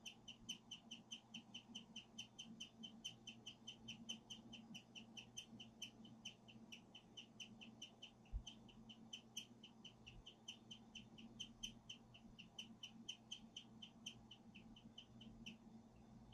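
Guinea pig chirping like a bird: a long run of short, high chirps, about five a second, that keeps going the whole time. A single low thump comes about halfway through.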